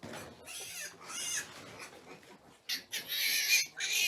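Pigs squealing in a series of short, high-pitched cries, the loudest and longest near the end.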